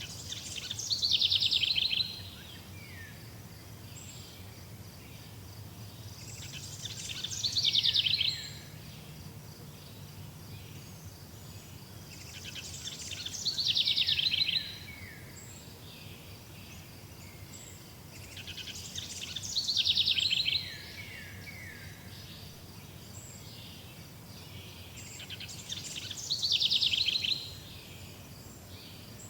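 A songbird repeating the same short song five times, about every six seconds: a fast high trill that falls in pitch and ends in a few lower falling notes. A faint steady background runs underneath.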